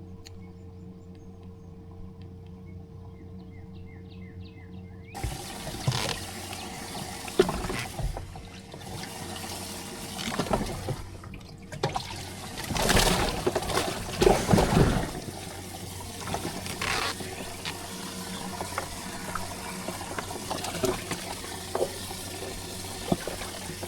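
Water splashing and sloshing in irregular bursts, loudest about halfway through, after a few seconds of a faint steady hum.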